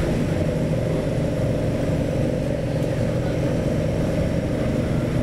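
Tour boat's engine running with a steady, even drone.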